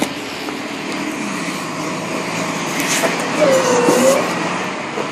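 Tow truck engine running steadily, with one brief squeal that dips and rises in pitch about three and a half seconds in.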